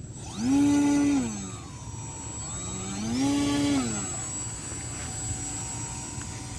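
Electric brushless 2212 1000kv motor spinning a 10x6 propeller, throttled up twice: each time the pitch rises quickly, holds for about a second, and falls back to a lower spin, with a steady high whine underneath.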